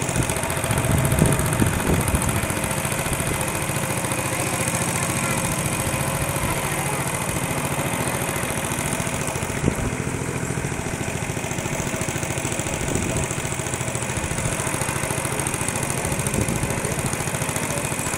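Small motor of a wooden boat running steadily at cruising speed, pushing the boat through floodwater.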